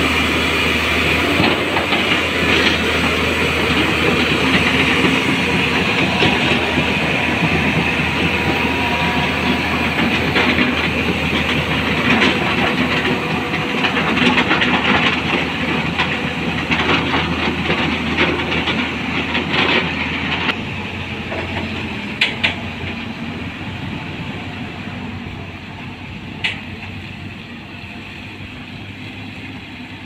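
JCB crawler excavator's diesel engine running hard under load, with metal clanking and rattling. The noise drops about two-thirds of the way through, leaving the engine running more quietly with a few sharp clanks.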